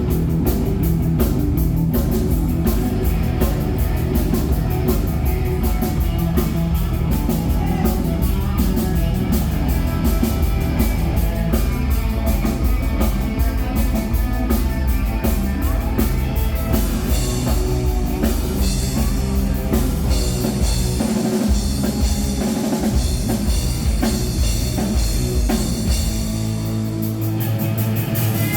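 Rock band playing live, with drum kit, electric guitar and bass. The drumming is busy for about the first two-thirds, then the playing opens out into longer held notes with fewer hits.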